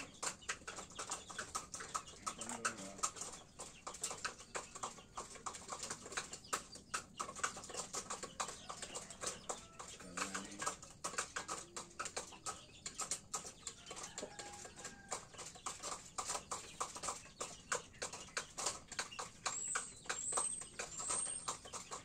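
Chicken coop sounds: a few low, soft calls from the birds now and then over a constant patter of irregular clicks, with several short, high rising chirps near the end.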